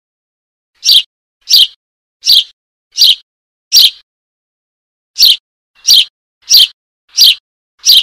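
Young Eurasian tree sparrow begging calls: short, high chirps repeated about every 0.7 seconds, in two runs of about five with a short pause between them. This is the call of a fledgling calling for its parent to be fed.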